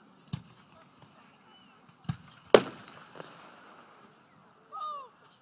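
Fireworks bangs: a sharp report about a third of a second in, another about two seconds in, then the loudest at about two and a half seconds with a long echoing rumble dying away.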